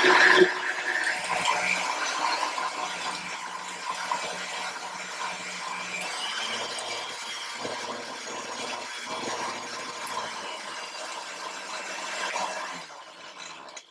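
Countertop blender motor running, blending a milkshake, louder for the first half second and then steady, until it is switched off near the end.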